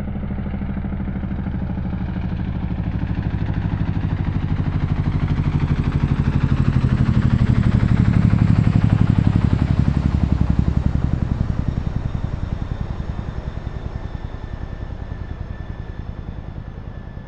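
Helicopter flyby: a fast, even rotor-blade thudding grows louder to a peak about halfway through, then fades away as it passes.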